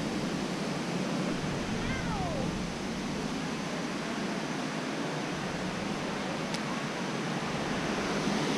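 Steady rushing of river water spilling over a low mill dam. About two seconds in, one short call slides down in pitch.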